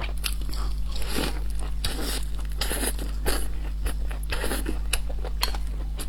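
Close-miked mouth sounds of someone eating braised pork buns: irregular chewing clicks, bites and soft crunches, over a steady low hum.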